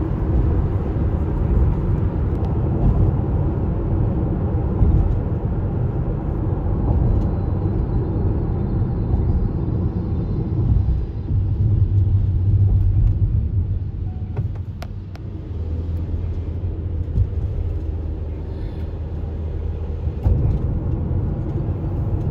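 Car road noise heard from inside the cabin: a steady low rumble of tyres on a wet expressway surface and the car's engine, dipping for a few seconds past the middle.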